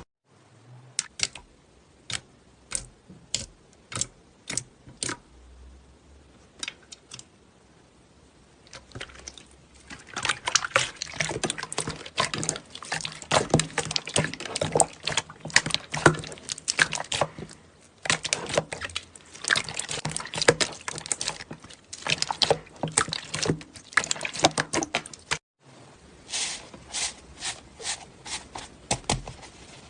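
Slime being squeezed and poked, with wet clicks and pops. At first they come one at a time, spaced out; from about ten seconds in they turn to dense crackling and squelching. There is an abrupt break near the end.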